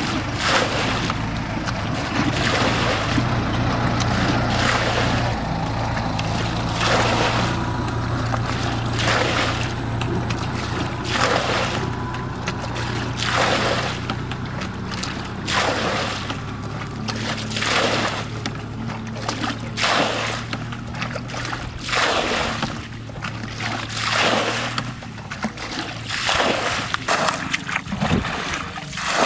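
Water being bailed out of a muddy ditch with a bucket: a splash of scooped and thrown water about every two seconds, over a steady low hum.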